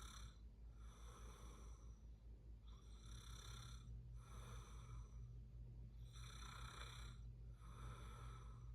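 A sleeping person snoring faintly: about one breath every three seconds, each a pair of soft hisses, in and out, over a steady low hum.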